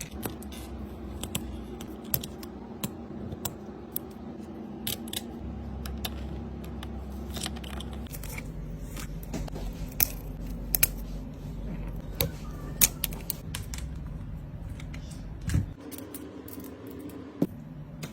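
Small tools clicking and tapping on a smartphone during a screen repair: scattered light clicks, a few sharper ones, over a steady low hum.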